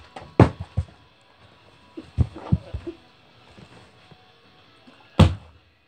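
Plastic Sprite bottle being flipped and thudding onto a carpeted floor: several thuds in the first second, a couple more about two seconds in, and one loud thud about five seconds in as it lands upright.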